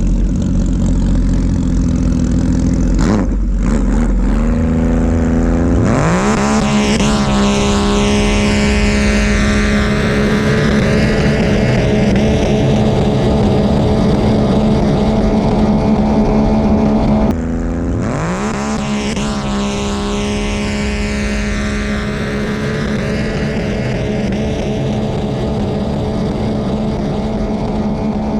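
Racing jet ski engine at low revs, then accelerating in a rising sweep about six seconds in and holding at high revs; the sound cuts abruptly about two thirds of the way through to another run that rises again and holds at high revs.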